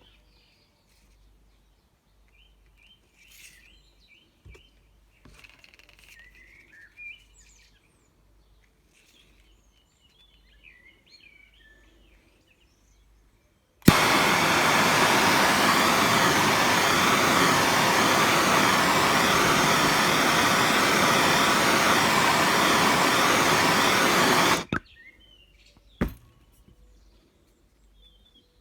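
A hot-air heat gun blowing steadily for about ten seconds, shrinking black heat-shrink tubing over metal cable ties; it switches on and cuts off abruptly, and a sharp click follows shortly after. Faint birdsong runs through the quieter parts.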